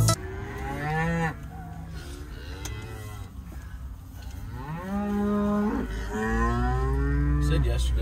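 Beef cattle mooing: several calls one after another, the last two longer and louder than the first.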